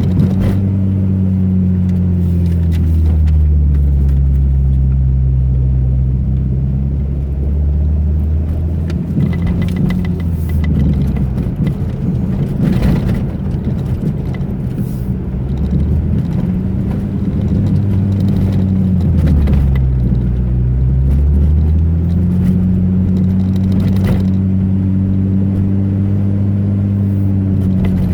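Car engine running under way, its pitch falling and rising several times as the revs change, with occasional knocks and rattles from bumps in the road.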